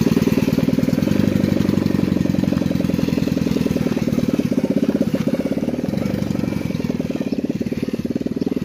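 Rebuilt 110cc motorcycle engine running, its exhaust a rapid, even pulsing beat that grows gradually quieter.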